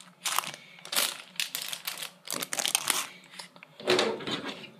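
Plastic Lego poly bag crinkling and crackling in irregular bursts as it is handled.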